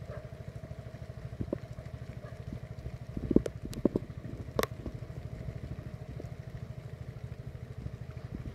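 A small engine running steadily with a rapid, even putter. A few sharp clicks and knocks come between about three and five seconds in.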